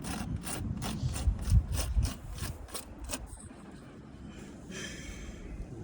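Pen scratching on paper in quick short strokes, about four a second, as figures are written down, with a low rumble at first and a brief hiss near the end.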